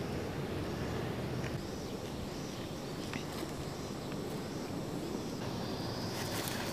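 Steady open-air ambience: an even hiss with a low wind rumble on the microphone, and a couple of faint brief chirps about one and a half and three seconds in.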